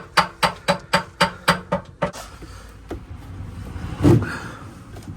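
A rapid series of evenly spaced knocks, about four a second, that stops about two seconds in, followed by a single heavier thump near the end.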